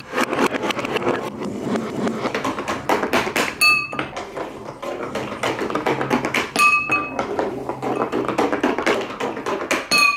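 Colourful balls clattering as they roll down a wavy plastic marble-run track, with a bright ringing tone each time a ball strikes the water-filled glass bowl at the bottom, four times about three seconds apart.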